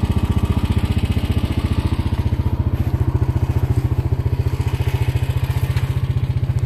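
An engine idling steadily nearby: a low, even pulsing that does not change in speed or level.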